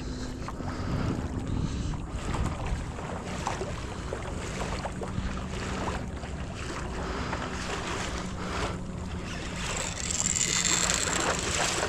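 Wind buffeting the microphone and water washing around a fishing kayak's hull, with scattered small clicks and knocks. A louder hissing rush comes about ten seconds in.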